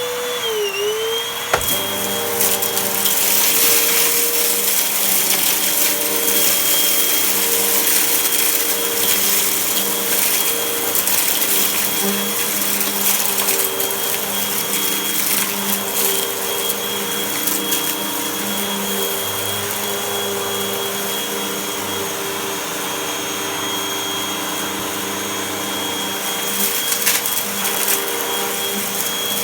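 Vacuum cleaner motor running while sucking up dirt, with a rushing hiss of suction and scattered crackles and rattles of debris. Its pitch dips briefly about a second in, then holds steady.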